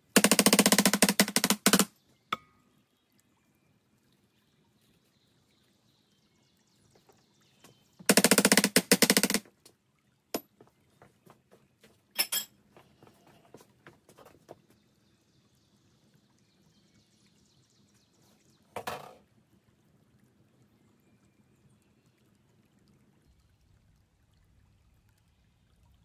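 Metal tube twisted into packed casting sand to cut pour holes through a sand mould, a gritty rapid scraping in two bursts, the first nearly two seconds long and the second about a second and a half, with a few small taps and a short scrape after.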